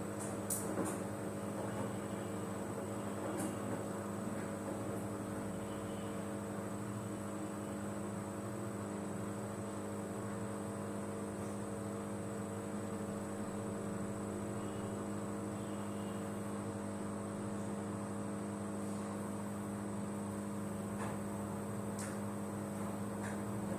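Samsung front-load washing machine running with a steady, unchanging hum and a faint high whine, with a few light clicks about a second in.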